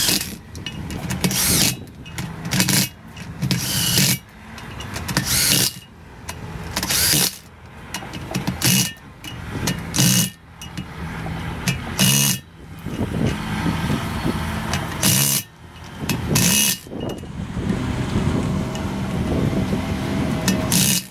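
DeWalt cordless impact wrench hammering in short bursts, a dozen or so, about one every second or two, on the bolts that join a new brake rotor to a truck's wheel hub.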